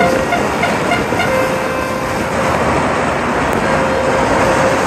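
Steady, dense din of distant New Year's fireworks and firecrackers going off all over the city, blended into one continuous roar, with horns sounding on and off and a short run of beeps near the start.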